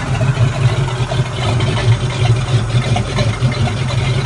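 PCM Ford GT40 5.8 HO marine V8 idling steadily with the engine hatch open, a low even hum. It is being run after a new raw water pump impeller went in, to check that the engine now stays cool at idle.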